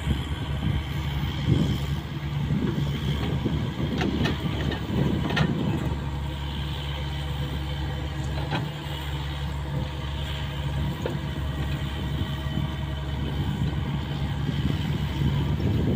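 Caterpillar 305.5E2 mini excavator's diesel engine running steadily as the boom and bucket dig in a ditch, the engine note swelling and easing with the work. A couple of sharp clanks come about four and five seconds in.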